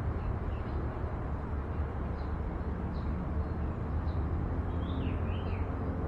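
Faint, scattered bird chirps over a steady low rumble of outdoor background noise, with two short falling calls near the end.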